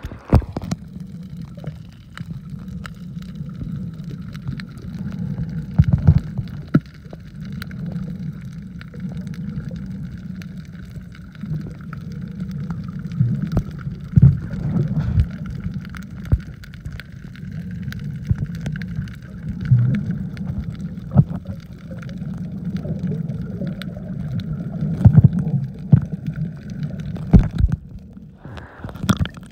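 Water moving around a submerged microphone, heard muffled: a steady low rumble with irregular knocks and gurgling swells.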